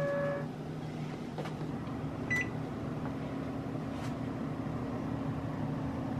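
A steady low hum runs throughout. A steady higher tone stops about half a second in, and a short high chirp comes a little over two seconds in.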